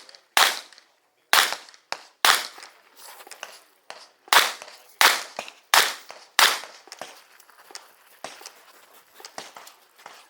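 Competition revolver fired in quick strings: three shots in the first two and a half seconds, a pause of about two seconds, then four more about two-thirds of a second apart. Fainter cracks and knocks follow in the last few seconds.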